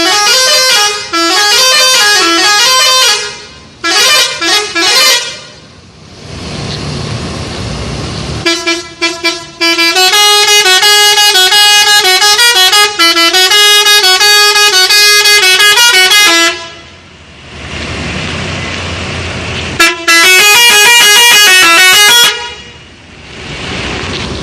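Bus telolet horn, a set of musical air horns, playing a stepped tune. It sounds in several bursts: one of about three seconds at the start, a few short toots just after, a long run of about eight seconds in the middle and a final burst near the end. Steady road noise fills the gaps.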